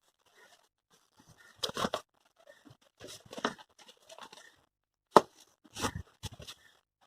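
Packaging being handled: irregular rustling and crinkling, with a sharp click about five seconds in.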